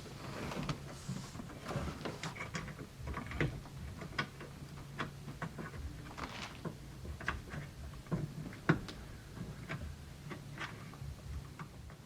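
Irregular small clicks and knocks of hand work on the window motor's mounting: nuts being fitted and tightened, with light tool and metal handling. The sharpest knock comes near the end.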